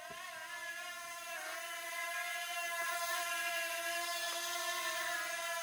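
Small toy quadcopter with a red car body hovering, its propellers and tiny motors giving a steady whine that wavers slightly in pitch and grows a little louder.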